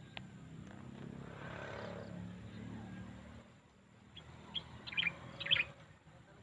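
A songbird gives a quick burst of short, high chirps in the second half. These are the loudest sound. Before them, a low rumble with a steady hum rises and fades.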